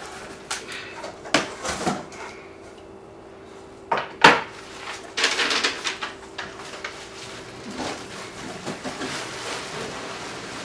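Cardboard shipping box being handled: a few sharp knocks and taps of the box and its flaps, then crinkly rustling of a plastic-wrapped package as it is pulled out of the box.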